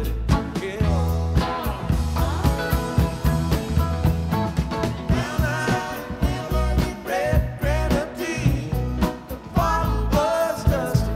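Music: a song with singing over a steady drum beat.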